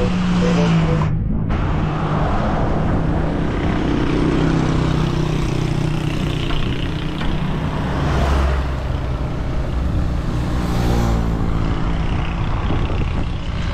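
Road traffic: a motor vehicle's engine running close by, fading near the end, over a steady rumble of other traffic.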